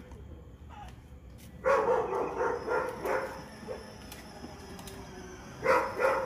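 A dog barking: a run of about five barks starting nearly two seconds in, then two more near the end.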